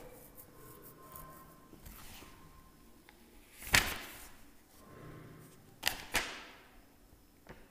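Paper pages of a book being leafed through: a few sharp page flips and rustles, the loudest about four seconds in and two more close together near six seconds.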